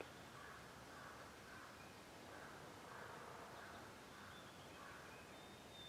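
A faint series of distant bird calls, short notes repeated about every half second, over quiet outdoor background.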